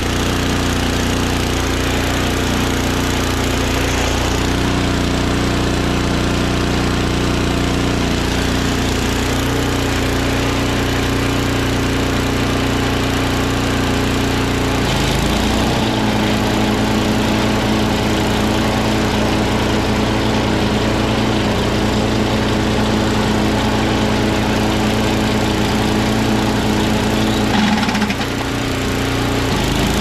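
Craftsman 522 two-stage snowblower's 5 hp Tecumseh Snow King engine running steadily after a cold start, its note shifting about halfway through. Near the end there is a brief odd noise as the auger is released and slows, which the owner suspects is a loose auger belt on the tensioner arm hitting the cover.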